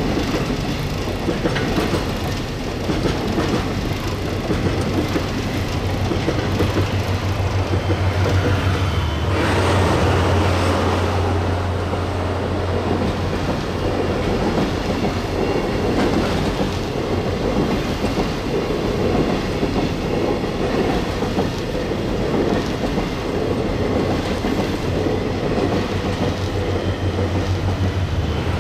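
Freight train of container wagons rolling past, the wheels clacking steadily over the rail joints. Under it runs the low drone of a DF200 diesel-electric locomotive's engine, strongest around the middle and rising again at the end.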